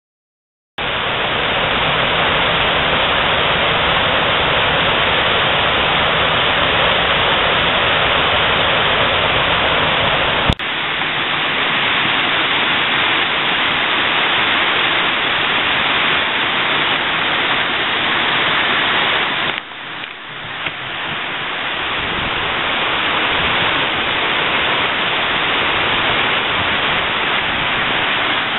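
White water rushing over a river weir: loud and steady. It starts abruptly about a second in, with one sharp click about ten seconds in and a brief dip in level a little before the twenty-second mark.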